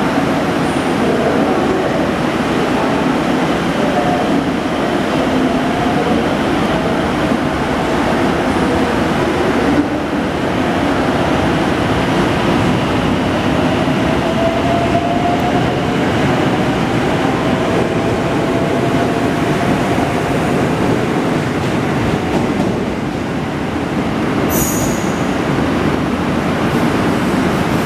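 521-series electric multiple-unit train running at a station platform: continuous rumble of wheels on rail and running gear. A faint whine rises in pitch about halfway through, and a brief high squeal sounds near the end.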